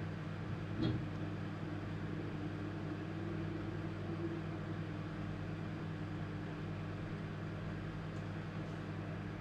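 Microwave oven running, heard from about a metre away: a steady low hum under an even rush of noise, with one short knock about a second in.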